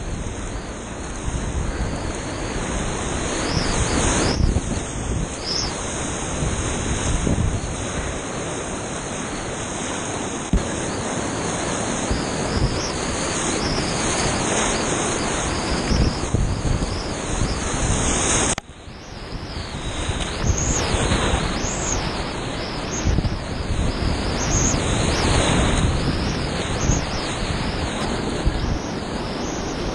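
Whitewater rushing and splashing around a kayak on an artificial slalom course, close to the microphone, with wind buffeting it. About two-thirds through the noise drops suddenly, then builds back up.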